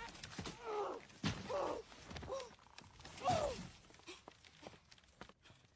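A woman's strained grunts and gasps of effort, about four short cries in the first few seconds, mixed with knocks and thumps.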